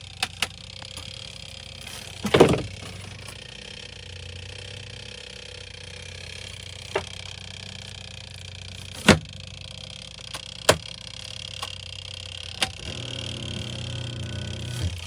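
Small twin-tub washing machine's motor humming, with a low drone that swells near the end, broken by about eight sharp clicks and knocks, the loudest about two seconds in. The machine is not working properly.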